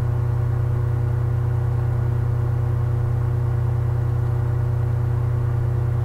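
A steady, loud low hum with a faint whir, unchanging, with a few thin steady tones above it.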